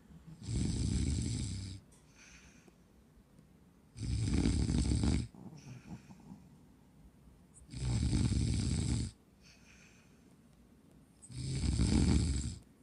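Small dog, a Shih Tzu, snoring in her sleep: four loud snores, each over a second long, coming about every three and a half to four seconds, with fainter breathing between them.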